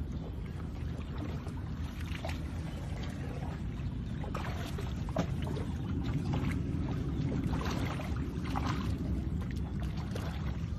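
Hippopotamus wading through shallow water, with sloshing and a few sharper splashes from its steps, over a steady low background rumble.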